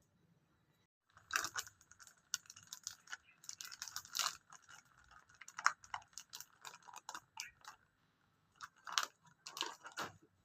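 Irregular clattering, crackling and clinking from hands working with kitchen things, starting about a second in, with a few louder clusters near the end.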